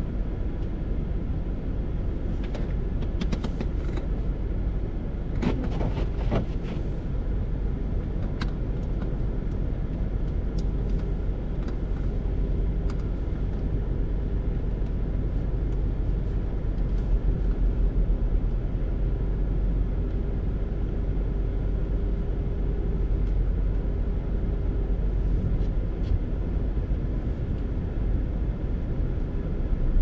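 Steady low rumble of a car's cabin in slow traffic. A few scattered clicks come between about two and seven seconds in, and a faint steady hum sits under the rumble through the middle.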